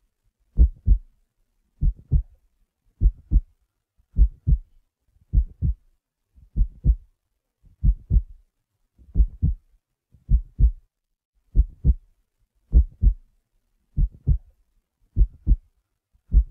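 Slow heartbeat sound effect: pairs of low thumps, each pair a quick double beat, repeating steadily about every 1.2 seconds.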